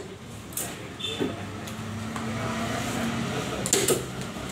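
Large knife chopping through yellowfin tuna into a wooden chopping block: a light chop about half a second in and a sharp, loud chop near the end, over a steady low hum.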